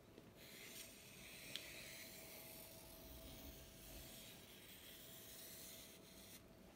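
Faint pencil scratching on watercolor paper as a circle is traced around the rim of a dinner plate: a soft, steady hiss that stops shortly before the end.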